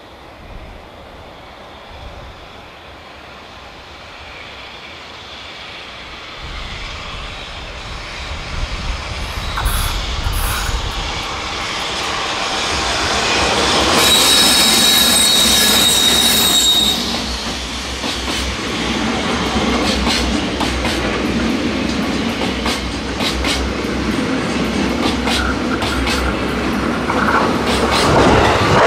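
EH500 electric locomotive hauling a container freight train approaches and passes close by, growing steadily louder. About halfway a high, ringing wheel squeal lasts about three seconds and stops suddenly as the locomotive goes by. The loaded container wagons then rumble past with rapid clacking over the rail joints.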